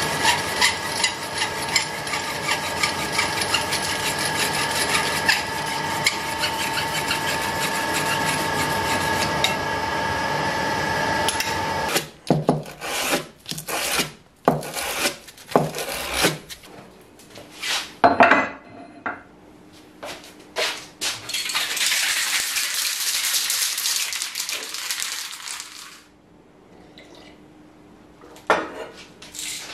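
A lathe running with an abrasive strip held against the spinning part: an even hiss with a steady whine for about twelve seconds. Then abrasive rubbing on a sheet of sandpaper on the bench, first in separate strokes and then as a steadier scrub. Near the end come a few short hisses, the start of an aerosol spray can.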